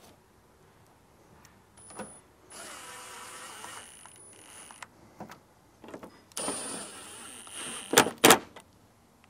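A small electric motor whirs twice, about two seconds each time, then two sharp knocks close together near the end.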